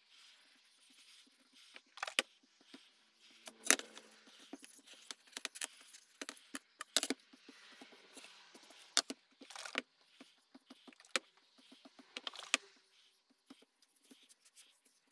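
A cloth and nitrile-gloved hands rub oil into an end-grain elm cutting board, making soft rubbing and squeaks broken by irregular clicks and light knocks. A few sharper taps come as the board is handled and turned over.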